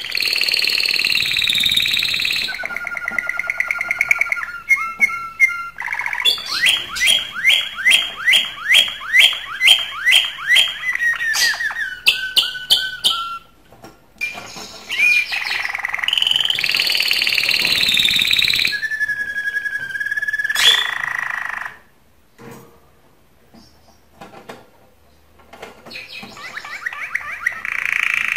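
Male domestic canary in breeding condition singing its courtship song: long phrases of fast trills and repeated sweeping whistled notes, broken by a brief pause about halfway and a longer gap a little later.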